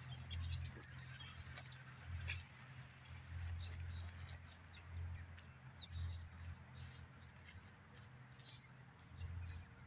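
Small birds chirping in short, scattered notes over a steady low hum.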